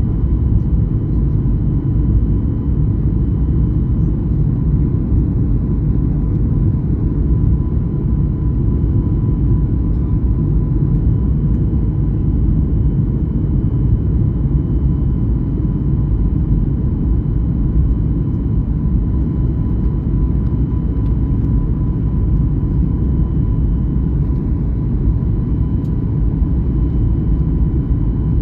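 Airliner cabin noise: a steady, loud low rumble of the jet engines and airflow, with a faint steady high whine over it.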